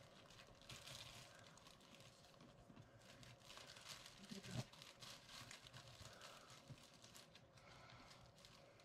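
Near silence, with faint rustles and light taps of craft items being handled on a table.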